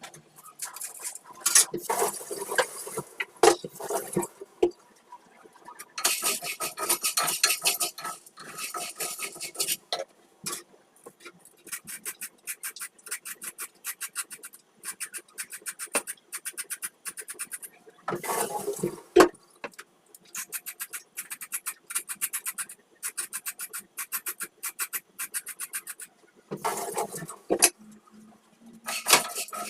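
A metal spoon stirring and scraping in a pot, clicking against it in quick rhythmic strokes about five a second, with several louder rattling stretches.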